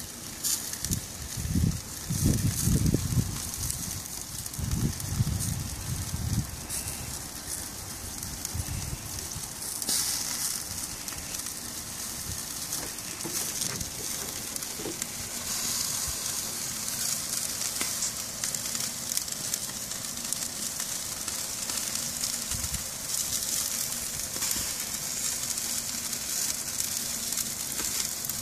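Chicken drumsticks sizzling on a charcoal grill over burning coconut-shell charcoal: a steady crackling hiss. Low rumbles come in the first few seconds.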